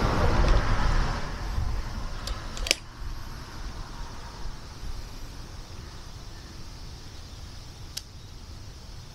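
Wind buffeting the microphone as a low, uneven rumble that eases after about two seconds into a quieter steady rush. A single sharp click comes near three seconds in, and a faint one near the end.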